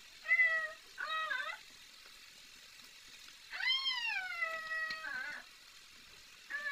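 A cat meowing: two short meows in the first second and a half, then a longer, drawn-out meow about halfway through that rises and then falls in pitch.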